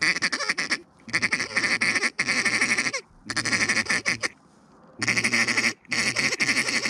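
A duck call blown by hand, close and loud, in a series of bursts of rapid quacking notes about a second each, calling to ducks in flight.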